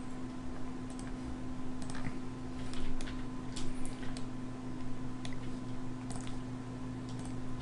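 Scattered sharp computer mouse and keyboard clicks over a steady low hum.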